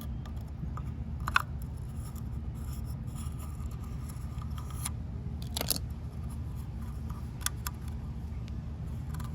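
A few light clicks and scrapes of hands working the old O-ring off a cartridge oil filter housing, over a steady low hum.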